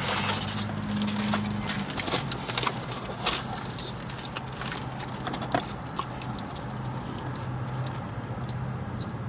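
Scattered light clicks and short rustles of fast-food paper wrappers and cardboard boxes being handled, over a low hum.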